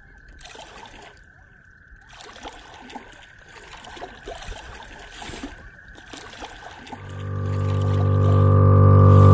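Underwater bubbling and trickling sound effect under one steady high tone. About seven seconds in, a low, buzzing horn-like drone swells steadily louder and becomes the loudest sound.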